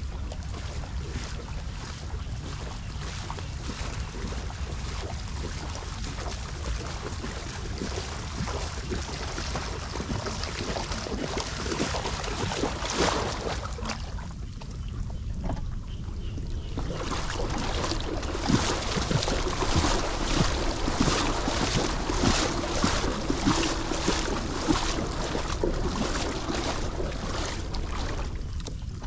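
Wind rumbling on the microphone over the hiss of rain and water on a flooded road. From a little past halfway, a quick run of short, sharp splashes comes in and grows a little louder.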